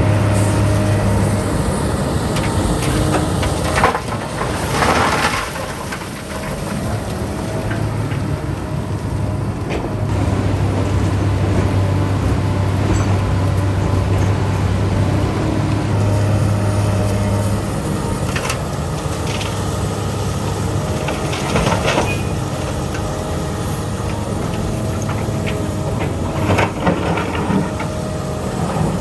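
Diesel engine of a heavy excavator running steadily, its deep hum swelling and easing every few seconds as the load changes, with a few sharp clanks of metal or rock, one of them a second or so after the first.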